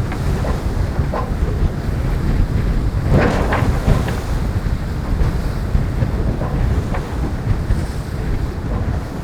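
Wind buffeting the microphone over the steady rush of water along a racing sailboat's hull at sea, with a louder surge of spray or a wave about three seconds in.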